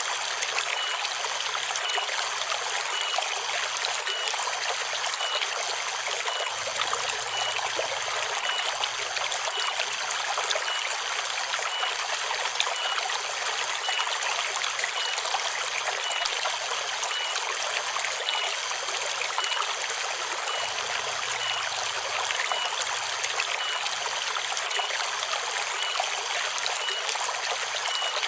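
Forest river water running steadily, with cicadas buzzing above it. A faint high note repeats a little more than once a second.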